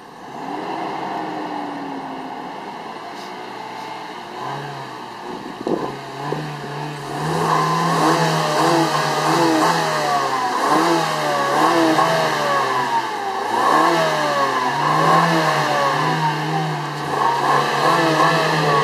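Car engines running, then revved over and over from about seven seconds in, the pitch climbing and dropping in quick repeats, as at a start line before a race. A single knock sounds about six seconds in.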